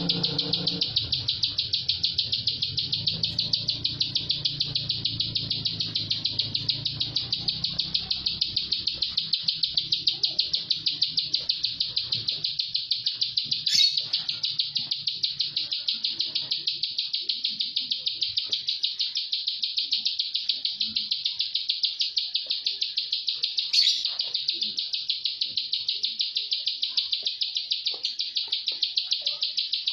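Caged plain prinia singing a continuous run of rapid, evenly repeated high notes with an insect-like reeling quality, the close, unbroken 'tight' song prized in these birds. Two brief, louder, sharper sounds break in, one near the middle and one about two-thirds through.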